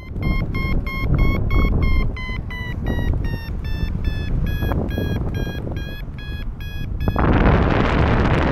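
Paragliding variometer beeping rapidly, about four beeps a second, its pitch slowly falling: the climb tone that signals the glider is rising in lift. Wind rumbles on the microphone throughout, and a loud rush of wind takes over near the end as the beeps stop.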